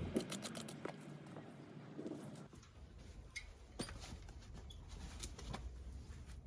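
Faint scattered clicks and light taps over a low hum.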